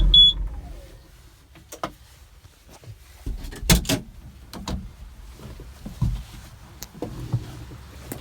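The Bobcat Toolcat 5600's turbocharged Doosan diesel is shut off, a short high beep sounding as its hum dies away within half a second. Scattered clicks and knocks follow, the loudest about three and a half seconds in.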